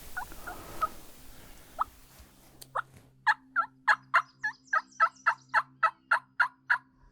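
Diaphragm turkey mouth call run as a long series of hen yelps, loud and close, about three or four yelps a second, starting about three seconds in after a few fainter notes and stopping just before the end. It is a hen-turkey imitation used to call in strutting gobblers.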